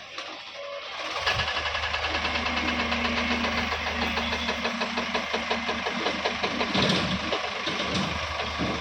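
Diesel engine running with a steady rhythmic clatter, picking up about a second in.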